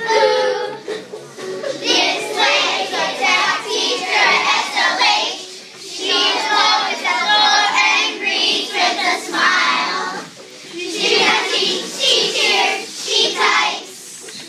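A group of children singing a song together, in phrases with short breaks between them.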